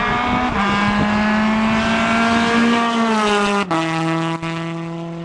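Rally car engine held at high revs as the car speeds past, its pitch sagging slightly. About three and a half seconds in the sound breaks off abruptly into a lower, steady engine note that slowly fades.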